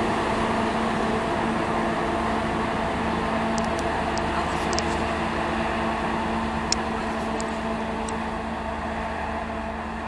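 Diesel engines of GWR Class 43 HST power cars running steadily at a station, a low even engine hum that slowly gets quieter toward the end, with a few faint clicks.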